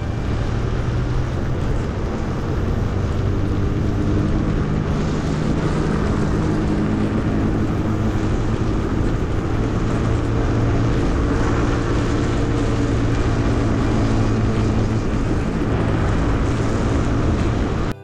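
Engine and road noise of a moving vehicle: a steady drone with a wide rushing haze over it.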